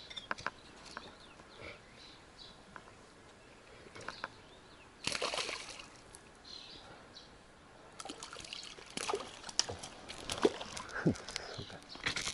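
A hooked fish splashing at the surface as it is played on a pole rod: a burst of splashing about five seconds in, then repeated splashes and slaps over the last four seconds as it is drawn to the bank.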